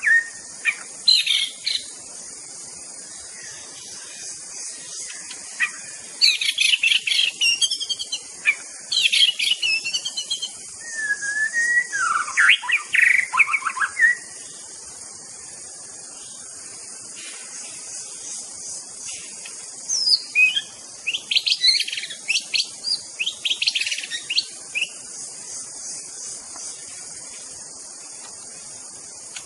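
White-rumped shama (murai batu) singing in bouts of quick, varied whistled phrases and chirps, with pauses of several seconds between bouts.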